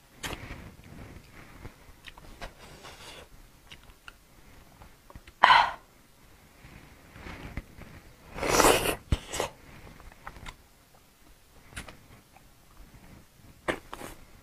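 Close-miked eating of braised pork trotters: small wet clicks of meat and skin being pulled apart and chewed, with two loud breathy slurping bursts, one about five and a half seconds in and a louder one about eight and a half seconds in as the meat is bitten.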